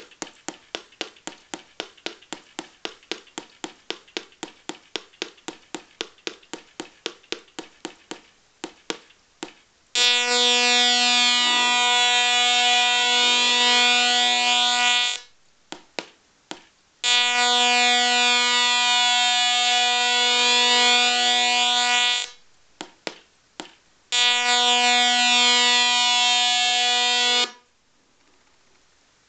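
Velleman MK170 LED star kit's electronic sound effects: a rapid, even ticking at about four or five a second, then three steady buzzy electronic tones of about five seconds each, with short gaps between them.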